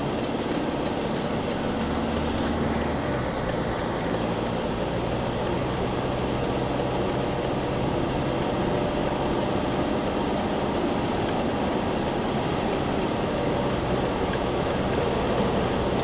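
Steady road noise inside a moving Mercedes-Benz car: engine and tyres on asphalt, heard from the cabin at a constant cruising pace.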